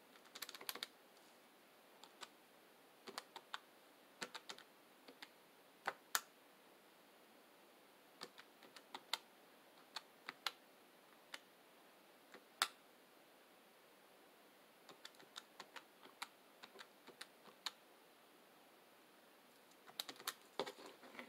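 Calculator keys being pressed to add up totals: short, sharp clicks in irregular runs with pauses between, over near silence.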